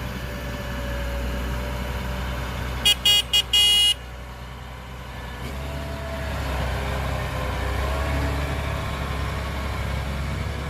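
Vehicle horn sounding a few short high-pitched toots and then a longer one, over a heavy engine running steadily.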